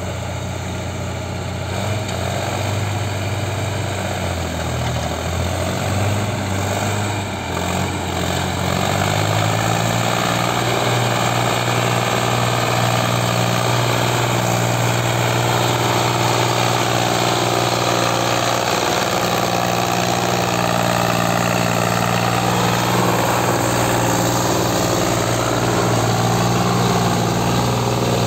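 Diesel farm tractor engine pulling a trolley loaded with earth through mud. It changes speed up and down for the first several seconds, then runs steadily under load.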